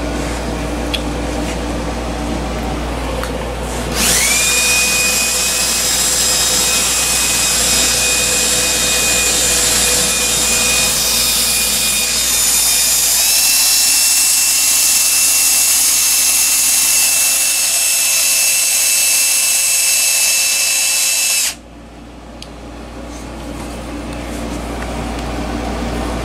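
Ridgid cordless drill running at a steady speed for about seventeen seconds, spinning a part in its chuck while diagonal cutters are held against it. It starts about four seconds in with a steady whine that steps up in pitch partway through, then stops suddenly.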